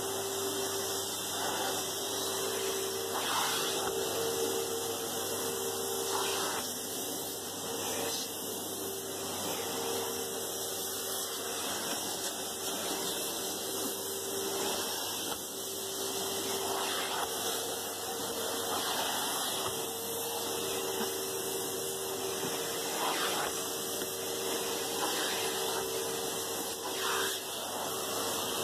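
Henry Hoover cylinder vacuum cleaner running steadily with a constant motor hum, sucking up fine fake snow from a carpet.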